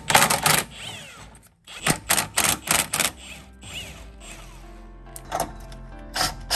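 Wrench and cordless impact wrench working the rear sway bar end link nuts: a quick burst of rapid mechanical clicks at the start, then a run of sharp clicks about a quarter second apart a couple of seconds in, and a few more near the end, over background music.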